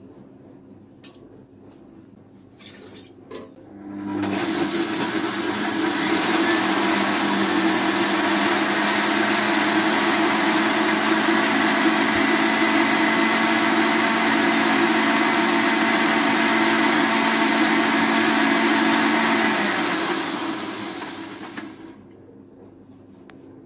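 A few light knocks as fruit goes into a glass blender jug, then the stand mixer's blender attachment switches on about four seconds in, comes up to speed and runs steadily, blending fruit into a smoothie. Its motor winds down and stops near the end.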